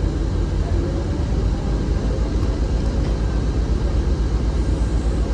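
Volvo excavator's diesel engine running steadily with a low, even rumble.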